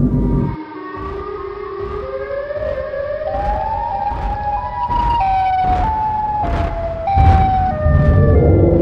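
Siren Head creature sound effect: an eerie siren-like tone that climbs in steps for about four seconds, then jumps up and down between pitches. Car road rumble drops away near the start and returns loudly near the end.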